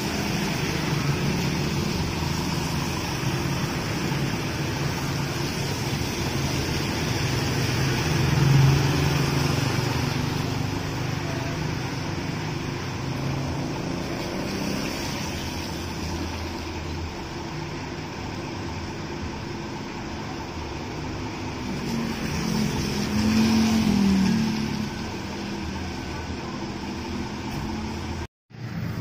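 Diesel engine of a double-decker tour bus idling with a steady low hum, over the hiss of traffic on a wet road. The sound swells louder about eight seconds in and again about three-quarters of the way through. It cuts out for a moment just before the end.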